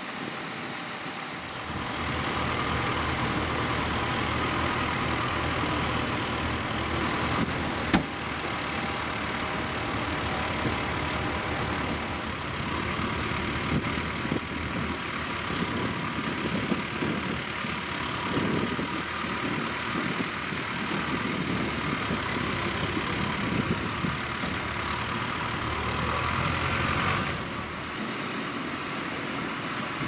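Tractor engines running steadily while ploughing, the engine note shifting at several points. A single sharp click stands out about eight seconds in.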